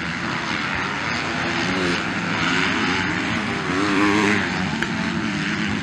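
Several 250cc MX2 motocross bikes racing together, their engines revving up and easing off so the pitch keeps rising and falling, loudest about four seconds in.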